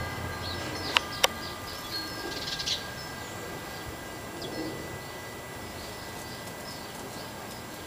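Small birds chirping around a bird feeder. Near the start and about a second in, a few clear bell-like strikes ring on briefly; these are the loudest sounds.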